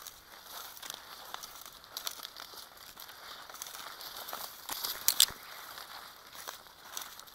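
Dry weed stalks crackling and rustling as someone walks through dead tall weeds, brushing and snapping the stems, with a few sharper snaps about five seconds in.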